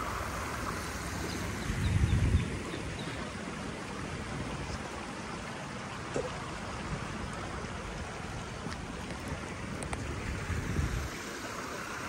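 A clear mountain river stream running over its bed, a steady rush of water. Two brief low rumbles of wind on the microphone come about two seconds in and near the end.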